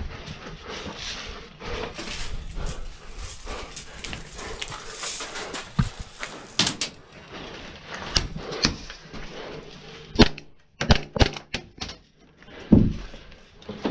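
Footsteps and movement on dirt and gravel, then a string of sharp knocks and clicks in the second half, the loudest a quick cluster about ten to eleven seconds in and one more near the end.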